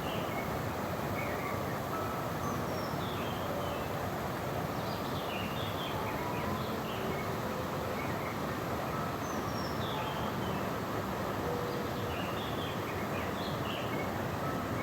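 Steady rush of a stream running high with spring snowmelt white water, with small birds chirping in short repeated phrases above it.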